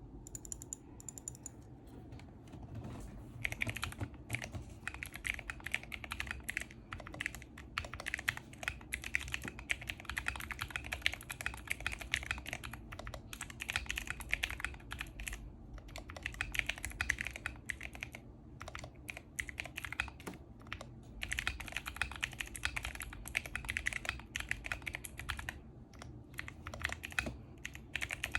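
Typing on a mechanical keyboard with Outemu Blue clicky switches: fast runs of sharp key clicks with short pauses between bursts.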